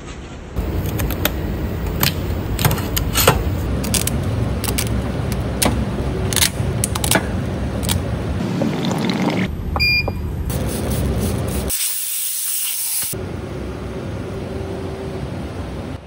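Handling noise from working on a resin 3D print: clicks and clatter of the print, build plate and metal tray over a steady low rumble. About twelve seconds in comes a hiss of just over a second.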